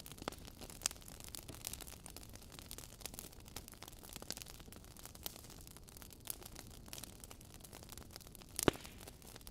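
Logs burning in a fireplace: a low steady hiss with scattered crackles and pops, the loudest pop coming near the end.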